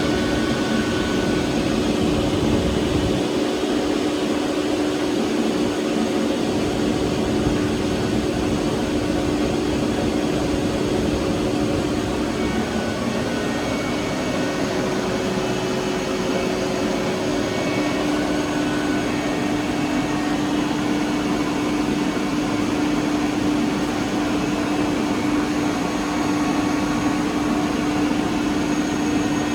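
BOGE screw air compressor running steadily, a continuous mechanical hum with a strong held tone; the deep rumble underneath drops away about three seconds in.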